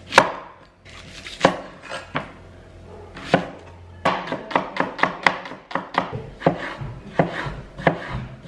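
Kitchen knife chopping on a wooden cutting board while cutting red onion and tomato: a few separate cuts at first, then a quick run of strokes about four or five a second from about halfway through.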